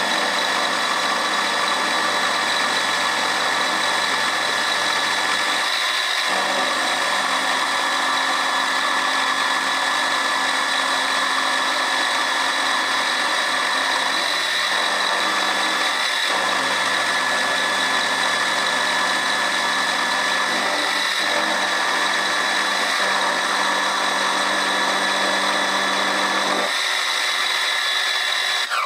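Milling machine running with an end mill cutting mild-steel bar stock: a steady whine whose lower tone shifts several times, stopping suddenly at the end.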